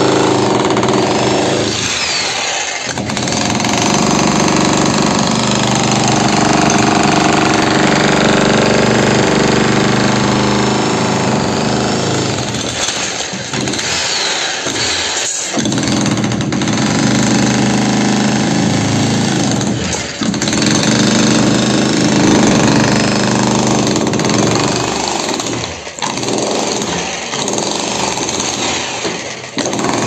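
Electric demolition hammer running steadily, its chisel point pounding into reinforced concrete, with several brief letups.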